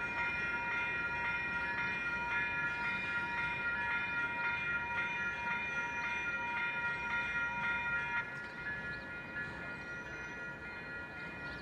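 Grade-crossing warning bells ringing, several at different pitches overlapping in a quick steady rhythm, with a train passing. About eight seconds in, one of the bells stops and the sound gets a little quieter.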